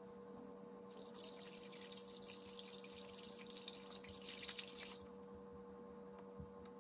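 Water splashing and sloshing as a hand stirs paper pulp in a plastic tub of water, starting about a second in and lasting about four seconds.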